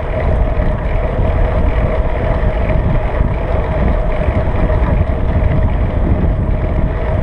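Wind rushing over the microphone of a bicycle-mounted camera as the bike rolls along a road: a loud, steady, unbroken rumble.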